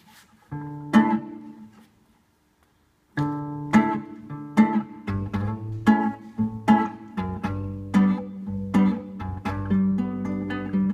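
Acoustic guitar played solo: a single chord rings out about half a second in and fades away, then after a short pause a fingerpicked pattern starts about three seconds in, with lower bass notes joining a couple of seconds later.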